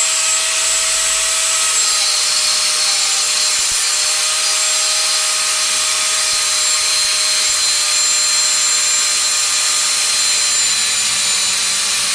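Angle grinder running at full speed, cutting through an iron pin: a steady motor whine under a dense hiss of the disc on metal.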